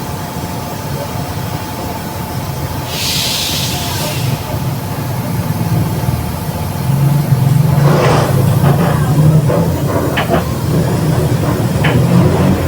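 Mercedes-Benz OF 1721 bus driveline heard from inside the bus, running with a steady whine from the growling rear differential. A short burst of air hiss comes about three seconds in, and from about seven seconds the engine grows louder, with rattles and knocks from the body.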